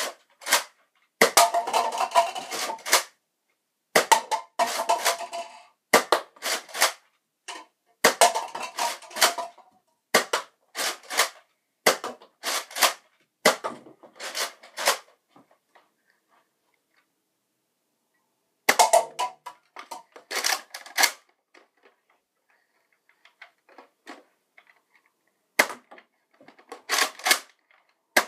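Nerf Retaliator spring-powered dart blaster being primed and fired over and over: runs of sharp plastic clacks, with plastic cups clattering as darts knock them off a stacked pyramid. The shots stop for a few seconds about halfway through, then start again.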